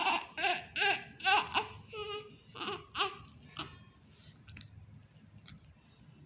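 Newborn baby crying in short repeated cries, about two a second, which fade out about four seconds in.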